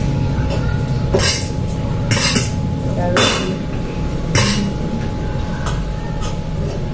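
Forks clinking and scraping against metal plates as noodles are stirred and lifted, in short strokes several times, over a steady low rumble.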